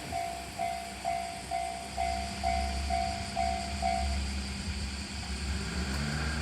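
Level crossing warning bell ringing a repeated electronic ding, just over two a second, then stopping about four seconds in as the crossing clears. A low rumble from the departing 1500-series diesel railcar runs underneath.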